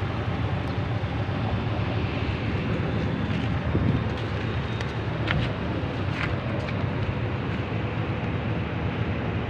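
Wind buffeting a phone microphone over a steady low outdoor rumble, with two brief clicks about five and six seconds in.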